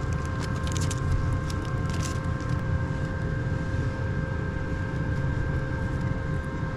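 Plastic wrapper of duct seal putty crinkling and crackling for the first couple of seconds as the putty is pulled out by hand. Under it, a steady low mechanical hum with a constant whine runs throughout.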